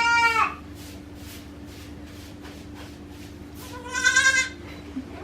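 Newborn goat kid bleating: two short, high-pitched calls, one at the start and another about four seconds in.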